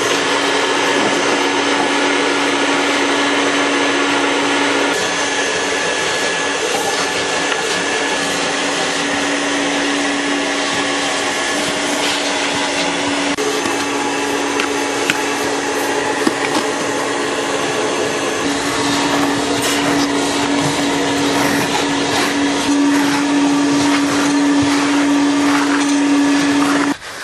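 Vacuum cleaner running steadily with a constant hum, switched on at the start and off just before the end. Scattered small clicks sound through its noise in the second half.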